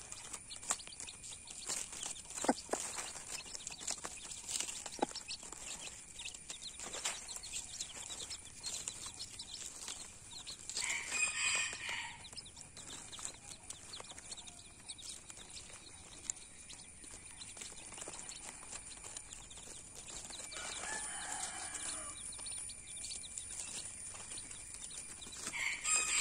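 A mother hen and her chicks foraging in dry leaves: rustling and light pecking taps, with a burst of chick peeping about eleven seconds in and a lower run of hen clucking a little past twenty seconds.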